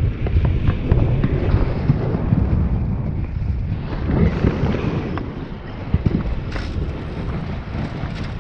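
Wind buffeting the microphone of a moving recumbent trike: an uneven low rumble, with scattered light ticks.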